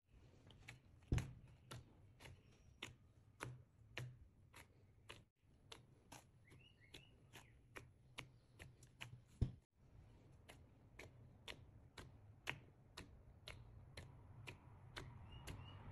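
Hands kneading soft bread dough in a glass bowl: quiet, regular pats and squishes about twice a second, with a sharper knock about a second in and another just past halfway.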